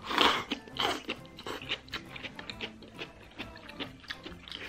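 A person slurping a spoonful of broth and rice with a loud slurp, and a second shorter one about a second in, then chewing with many small wet clicks.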